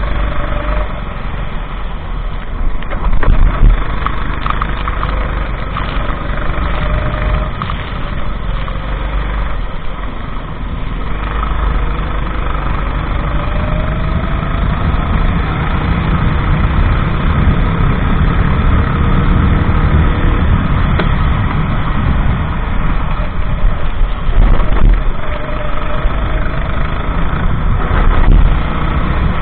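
Racing kart engine running continuously, its pitch slowly rising and falling with the throttle.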